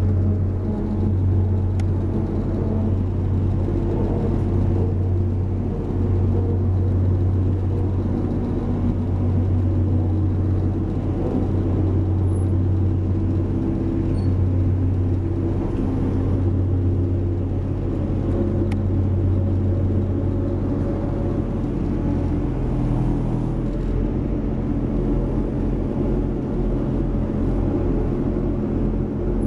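Onboard a Class 175 diesel multiple unit running at speed: a steady low engine hum with wheel-on-rail rumble underneath. The hum changes to a rougher, fluttering rumble about three-quarters of the way through.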